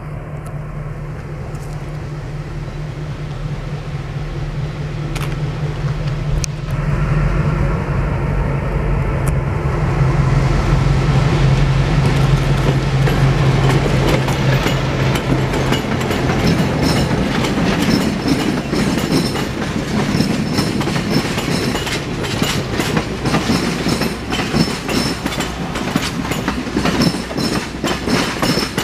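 Cab-unit diesel locomotive approaching with a steady low engine drone that grows louder, then passing. Its passenger cars roll by with wheels clicking over the rail joints.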